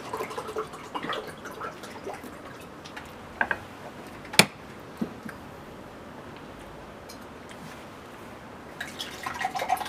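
A few small clicks and taps of spoons against plastic dessert cups at the table, the sharpest a little over four seconds in; otherwise quiet.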